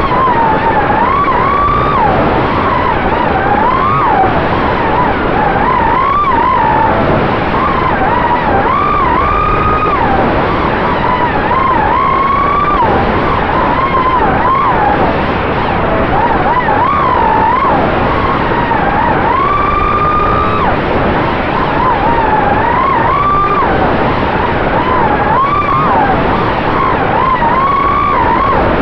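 Racing quadcopter's four Cobra 2207 brushless motors spinning HQ 5045 three-blade props, a high whine that rises and falls in pitch every second or so as the throttle changes in flight, over a steady rushing hiss of prop wash and air.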